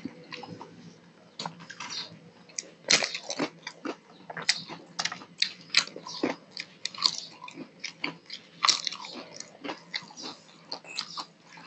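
A person eating close to a clip-on microphone: wet chewing and lip smacks with irregular crisp crunches, as mouthfuls of rice mixed with dal are eaten by hand.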